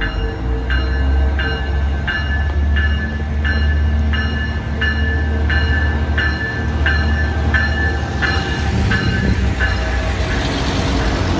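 Railroad crossing bell dinging in an even rhythm, about three strokes every two seconds, over the low rumble of an approaching Colorado Railcar diesel multiple unit. The dinging stops shortly before the end as the railcar comes alongside and a rushing noise rises.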